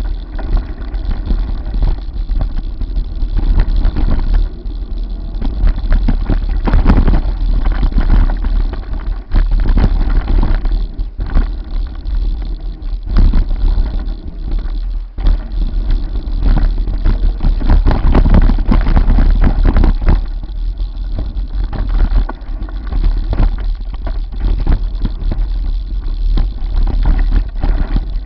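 Mountain bike riding fast down a dirt singletrack, recorded by a camera on the bike or rider: heavy wind rumble on the microphone with the tyres and frame rattling and knocking over the bumps.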